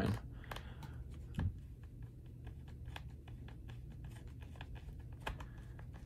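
Small precision screwdriver turning a bottom-cover screw on a Dell Inspiron 15 7000 laptop: a run of light, irregular clicks, with a slightly louder knock about one and a half seconds in. Some of these cover screws are captive and stay in the cover once unscrewed.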